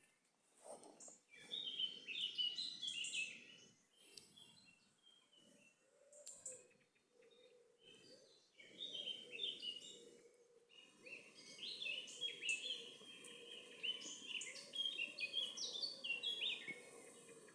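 Songbirds singing a morning dawn chorus: bursts of quick, high twittering song phrases, coming thickest in the second half, over low background noise.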